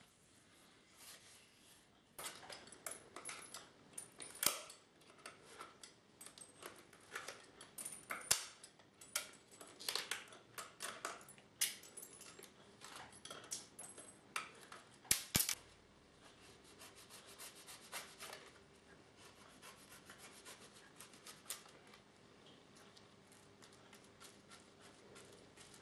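A leather shoe upper is worked over a last with metal lasting pliers: rubbing and scraping with many sharp clicks and three louder knocks. For the last ten seconds or so a softer, quicker scratching as a brush spreads cement over the leather.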